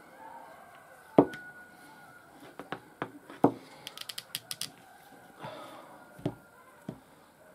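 Handling noise as a leather strap is wrapped and pulled tight around a small knife sheath: several sharp knocks, the loudest about a second in, a quick run of light ticks around the middle, and some rustling of the cord.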